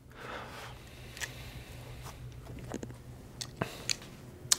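Scattered clicks and light rustles of a handheld e-collar transmitter and collar being picked up and handled, over a faint low steady hum, with the sharpest click near the end.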